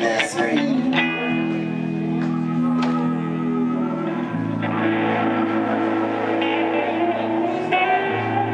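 Live band playing an instrumental passage with no vocals: electric guitar, bass guitar and keyboard, with long held low notes.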